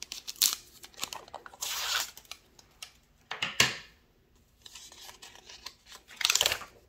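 Clear plastic wrapping on a planner being cut with scissors, torn and pulled off, crinkling in several short bursts, the longest about two seconds in and a sharp crinkle near the end.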